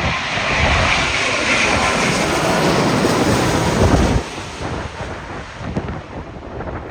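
Jet airliner's engines heard close by as it comes in to land, mixed with strong wind buffeting the microphone. The loud engine noise stops abruptly about four seconds in, leaving wind noise.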